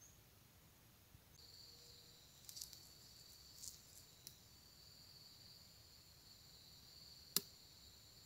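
Near silence: a faint, steady, high-pitched whine sets in after about a second and a half, with a few soft clicks and one sharp click near the end.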